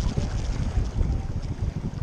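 Wind buffeting the microphone in uneven gusts over the rush of shallow river water.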